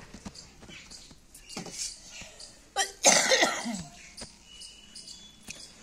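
A single harsh cough about three seconds in, among faint scattered light taps.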